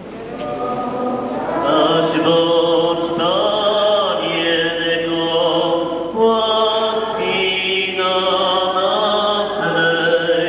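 Many voices singing a slow church hymn, with long held notes in phrases that change every second or two.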